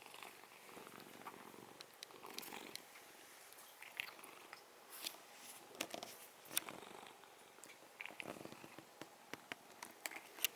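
Domestic cat purring steadily and faintly, with scattered small clicks and rustles.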